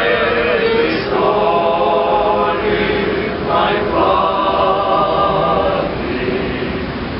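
A group of people singing together in held notes, phrase by phrase, with short breaks between phrases.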